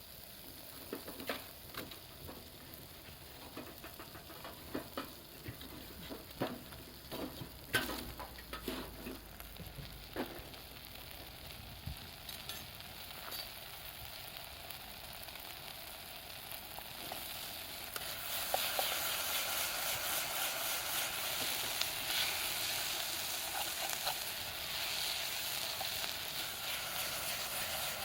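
Food frying in a pan over a campfire, with utensil clicks and scrapes of stirring through the first ten seconds or so; the sizzling grows louder about two-thirds of the way in and stays steady.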